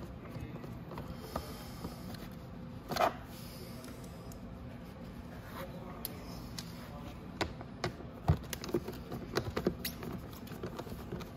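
Scattered small clicks and knocks of tools and fasteners being worked loose from the ATV's footwell panels, with one louder brief scrape about three seconds in, over a steady low hum.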